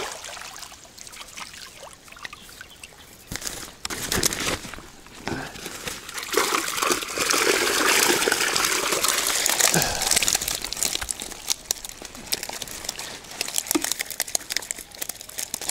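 Water splashing and streaming off the catch as it is lifted out of the water to be looked at, loudest from about six to ten seconds in, with small knocks and clicks.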